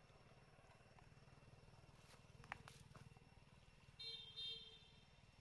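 Near silence with a low steady hum. A few faint clicks come about halfway through, and near the end there is a short high-pitched tone in two quick parts.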